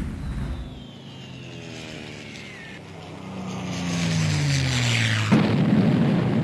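Wartime aerial bombing sound effect: a bomb whistling down, its pitch falling over several seconds with a lower drone sliding down beneath it. About five seconds in, a sudden explosion breaks in and its rumble runs on.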